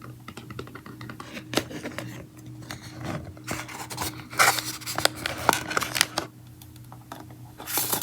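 Close-miked handling of a slime kit's box and paper cards: taps, scratches and rustling, thickest a little past halfway through.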